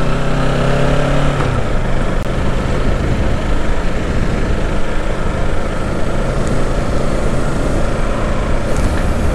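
2023 Kawasaki Ninja 650's parallel-twin engine pulling away, its pitch rising for about the first second and a half. After that a steady rush of wind noise on the rider's microphone covers it.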